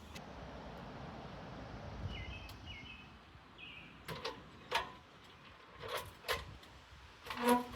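A ladder being handled and set in place: a few faint chirps, then from about halfway a series of irregular knocks and clanks, the loudest near the end.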